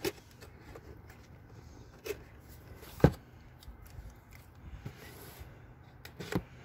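A cardboard box and a pair of scissors being handled: a few scattered clicks and taps, the sharpest about three seconds in.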